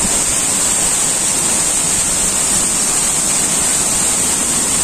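Steady rushing of water running down a stone water-wall feature, with a constant high hiss over it.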